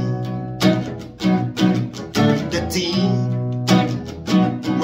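Acoustic guitar strumming chords of a slow song in B, roughly one strum every second or so with the chords ringing between, under a man's singing voice.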